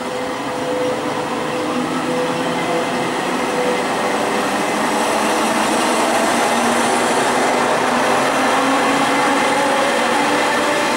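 Berlin S-Bahn class 480 electric trains running, with traction motors whining in several shifting tones over the rumble of wheels on rail. The train noise grows steadily louder.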